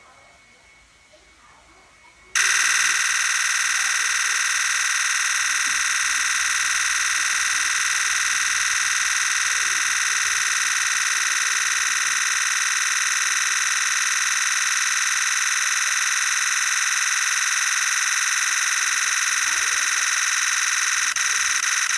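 Nikon Z8 firing a continuous high-speed burst, its shutter sound starting abruptly about two seconds in as one loud, steady, buzz-like chatter. Near the end it breaks up into separate ticks as the buffer fills.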